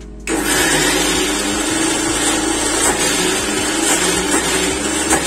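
Electric mixer grinder switched on about a third of a second in, its motor running steadily at full speed as the steel jar grinds soaked sago pearls with cumin and green chillies into a paste.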